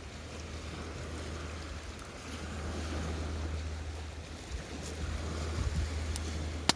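Outdoor wind buffeting the microphone with a low rumble over a steady rushing noise, broken by a few sharp clicks, the loudest near the end.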